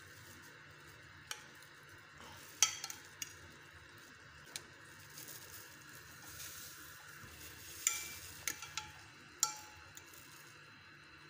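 A metal fork clinking against a glass dish a handful of times, in sharp separate clicks, while bread slices are pressed and turned in a milk-and-egg mixture, with soft wet stirring sounds between the clinks.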